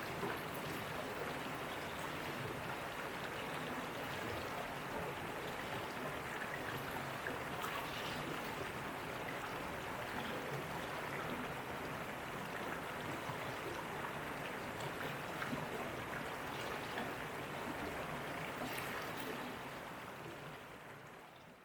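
Water from a waterfall stream flowing steadily, an even rushing sound that fades out near the end.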